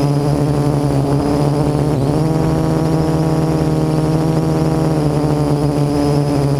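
Parrot AR.Drone quadcopter's electric motors and propellers whining steadily, heard close-up from the camera mounted on the drone. The pitch steps up about two seconds in and eases down slightly near five seconds as the motor speed changes.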